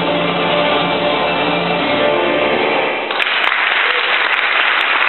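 Choir and band with guitars holding the final chord of a worship song, which stops about three seconds in; the congregation then breaks into applause.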